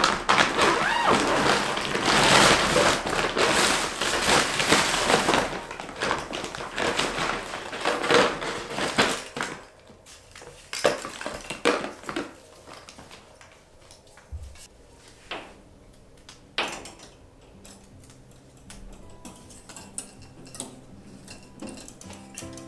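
The long zipper of a large IKEA fabric storage bag being pulled open, a dense rasping and rustling that lasts about nine seconds. Then a few light knocks and clinks follow as decorations are handled.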